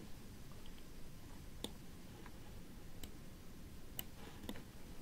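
A few faint, sharp computer mouse clicks at irregular intervals, about four in all, over low room noise.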